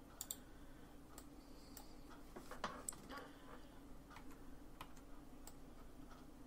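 Faint scattered clicks of a computer mouse and keyboard, about ten over several seconds, irregularly spaced, over a low steady hum.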